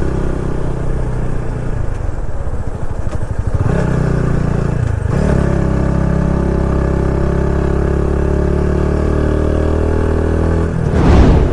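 Motorcycle engine running under way, heard from the rider's seat. The engine note dips and picks up again about five seconds in, and a brief loud whoosh passes near the end.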